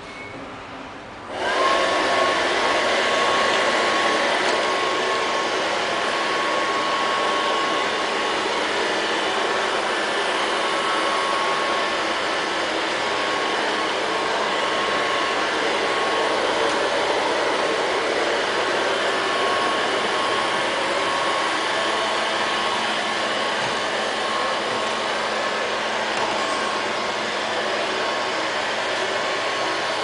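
LL-302 robot vacuum cleaner switching on about a second and a half in, then running steadily: the noise of its suction motor with a thin, even whine on top.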